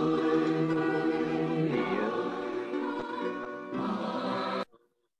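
Recorded choral music: a choir singing held chords. It cuts off abruptly near the end as the playback is switched off.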